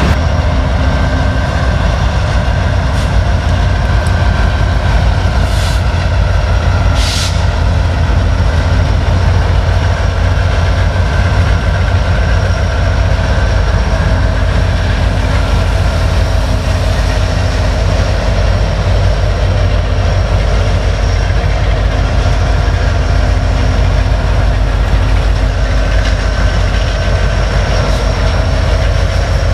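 Norfolk Southern freight train passing, its diesel locomotives including the Erie heritage EMD SD70ACe going by: a loud, steady rumble of engines and steel wheels on rail. A couple of sharp clicks come about six and seven seconds in.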